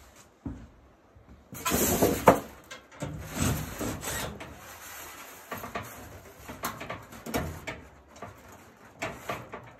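Handling noise: irregular rustling with scattered light knocks, loudest about two seconds in, as hands work on the dryer's metal cabinet and gas valve bracket.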